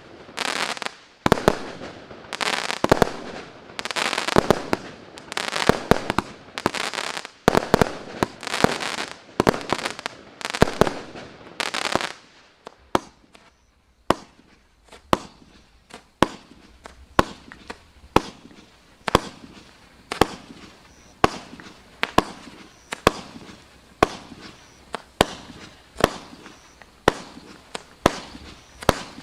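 A 300-shot firework cake firing. For about twelve seconds it fires a rapid run of bursts with crackling tails, then it settles into single sharp bangs at a steady pace of about one a second.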